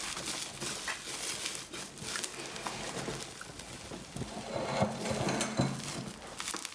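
Homemade glue slime mixed with small beads being squeezed and kneaded in the hands, giving irregular wet, sticky clicks and crackles.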